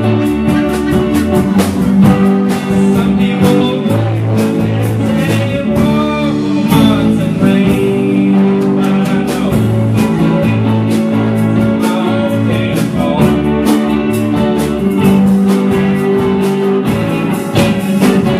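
Live band playing a blues-rock number on electric guitars, bass guitar and drums, with a steady beat of drum hits under sustained guitar notes.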